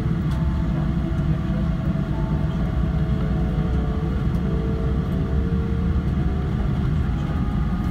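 Cabin noise of a Boeing 777-300 taxiing after landing: a steady low rumble of the airliner's engines and motion, with faint steady hums above it.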